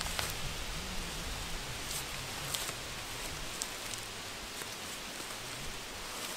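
Steady even hiss of outdoor ambience, with a few faint crackles and rustles of dry leaves on the forest floor.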